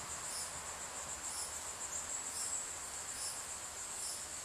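Insects chirping in a steady high-pitched chorus that swells about once a second.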